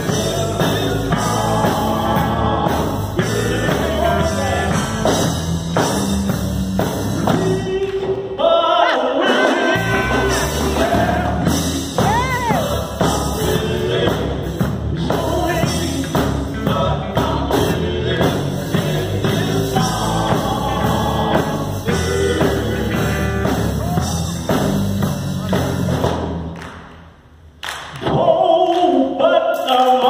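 Male gospel vocal group singing live with electric guitar and drums. The bass and drums drop out for a moment about nine seconds in, and near the end the music stops briefly before coming back in loud.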